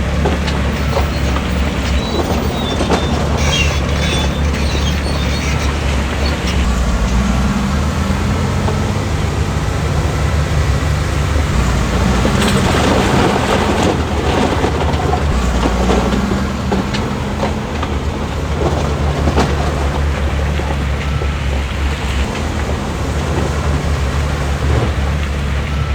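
Heavy diesel earthmoving machine running steadily with a deep engine drone, with metallic clanking and rattling throughout.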